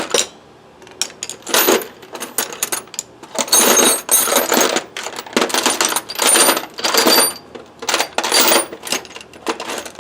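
Metal hand tools clinking and clattering together as they are rummaged through in a tool bag, in repeated irregular bursts with a bright metallic ring.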